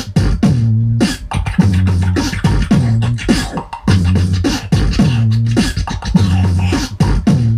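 Human beatbox beat performed into a handheld microphone: deep bass notes that slide down in pitch and then hold, punctuated by sharp snare and hi-hat clicks in a steady repeating rhythm.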